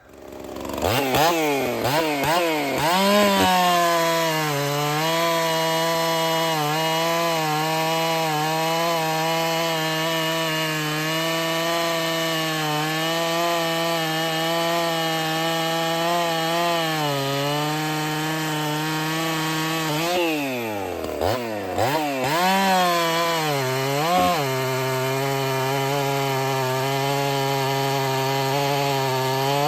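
Husqvarna 61 two-stroke chainsaw revved a few times, then held steadily under load as it cuts wood. About twenty seconds in it drops off toward idle and revs back up into another cut. Its chain's rakers are still a little deep, so it takes a hungry bite.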